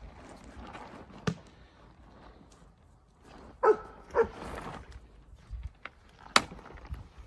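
A dog barks twice, half a second apart, about four seconds in. Sharp clicks or knocks sound about a second in and again near the end.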